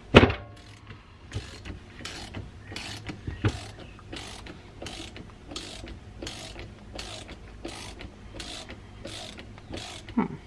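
Socket ratchet wrench turning a plug in a cast-iron hydraulic control valve body. The handle is swung back and forth, and its pawl clicks in a short burst on each return stroke, about every 0.6 s. A sharp metal knock comes at the start and another near the end.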